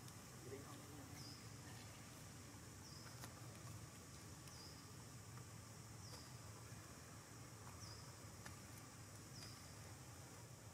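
Faint outdoor ambience: a steady high insect hiss, with a short, high, falling chirp repeated about every second and a half and a few soft clicks.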